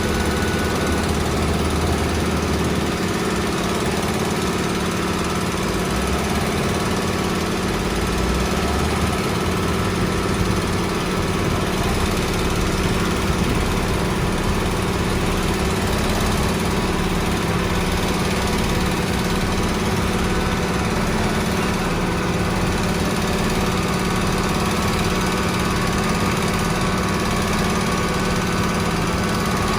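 Engine of road-construction machinery running steadily.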